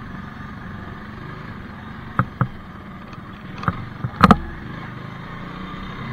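Bajaj Avenger motorcycle running at low speed on a rough dirt lane, a steady hum, with a few sharp knocks between about two and four seconds in, the loudest just past four seconds.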